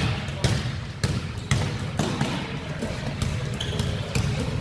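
Basketball being dribbled on a hardwood gym floor, bouncing about twice a second.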